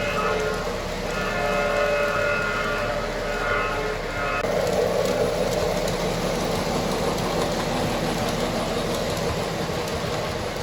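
O gauge model train's sound system blowing chord-like signal blasts, a long one then a short one, in the first four seconds, followed by the steady running rumble and clatter of the train rolling along the track.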